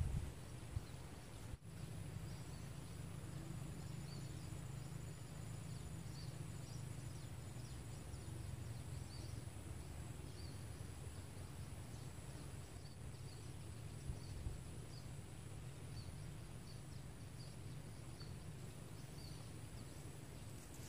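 Quiet outdoor ambience: a steady high insect drone with scattered small high chirps, over a low rumble of outdoor noise.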